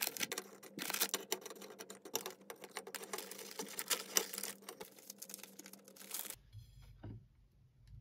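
Crinkling of a foil-lined biscuit packet and irregular light clicks as Lotus Biscoff biscuits are taken out and set down one by one on a plate. The handling stops about six seconds in.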